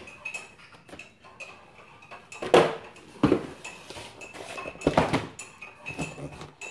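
A few sharp knocks and bumps from a cardboard toy box being handled and set down on a table, the loudest about two and a half seconds in and again near the middle.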